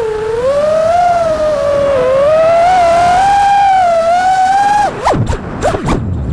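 FPV quadcopter's brushless motors and propellers whining steadily in fast flight, the pitch drifting up and down with throttle. About five seconds in the throttle is chopped and the whine breaks into quick dips and swoops.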